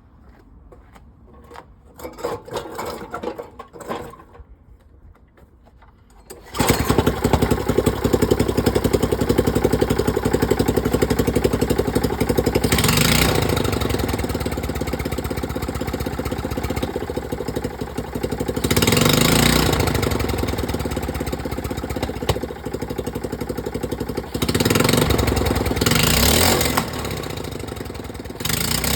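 Petrol engine of a Draper rotavator fitted with a Mikuni VM22 carburettor, with a couple of short bursts of cranking before it catches about six seconds in. It then runs steadily, with the throttle opened several times and the engine making pop-pop noises.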